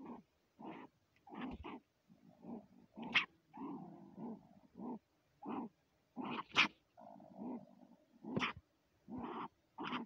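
A marten in a tree hollow growling in short, repeated bursts, about one or two a second, with a few louder, sharper calls among them: a cornered, defensive marten.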